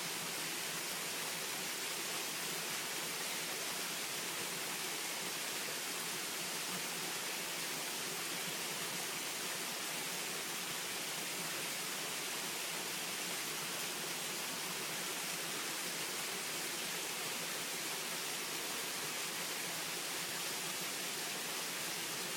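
Small waterfall's water falling and splashing over rock: a steady, unchanging hiss-like rush.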